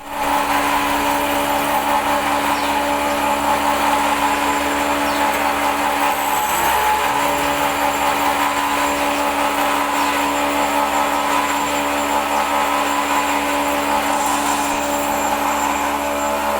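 Automatic camshaft copy machine running steadily: an electric motor hum with a constant noisy machining sound.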